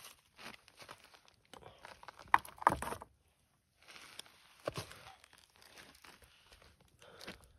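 Close handling noises: irregular crinkling and rustling with scattered clicks, two sharp knocks about two and a half seconds in, and a brief dropout just after three seconds.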